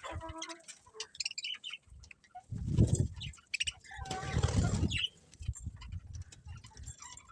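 Budgerigars chirping and chattering in short, scattered bursts, with two louder low rustling or fluttering sounds a few seconds in.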